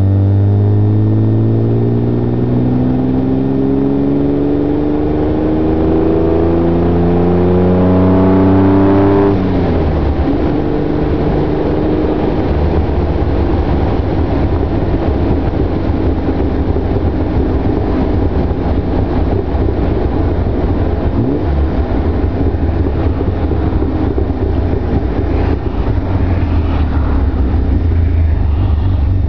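Austin-Healey sports car engine on the move, revs climbing steadily for about nine seconds, then dropping off sharply. After that it runs at steadier cruising revs under road and wind noise.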